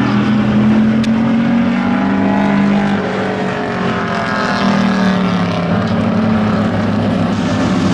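Engines of a pack of racing pickup trucks running hard around an oval track, several engines heard at once with their pitches rising and falling as they pass and go through the turn.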